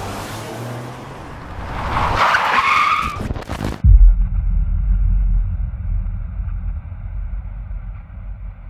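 A car's tyres screech and skid, louder and louder, then are cut off about four seconds in by a heavy low boom of a crash. A low rumble follows and slowly dies away.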